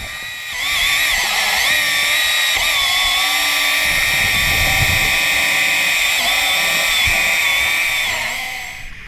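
Stanley hydraulic chainsaw running underwater, cutting into a wooden piling: a steady high whine whose pitch wavers a few times as the chain bites, fading out near the end.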